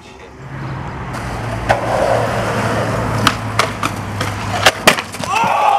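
Skateboard rolling on concrete, then several sharp clacks as the board pops onto a metal handrail, slides down it and lands. People start shouting near the end.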